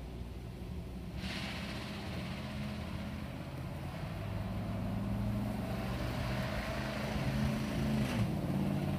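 An engine running, a steady low hum that slowly shifts in pitch and grows louder, with a rushing hiss setting in about a second in. No airsoft shots are heard.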